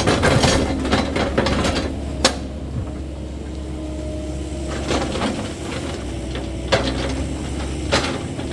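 Cat 308E2 mini excavator's diesel engine running steadily under work, with several sharp knocks and cracks from the machine's clearing work.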